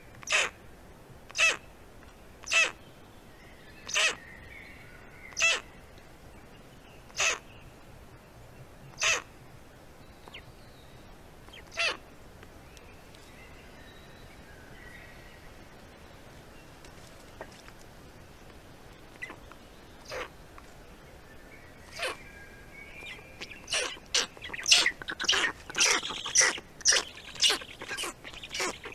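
Harsh, crow-like bird calls, one every second or two, then a quieter lull with a few faint calls. Near the end comes a rapid, dense run of calls as the adult black stork bends down to its chicks, typical of chick begging at feeding time.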